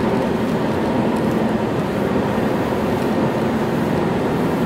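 Steady road and engine noise inside a moving car's cabin, an even low rumble with no distinct events.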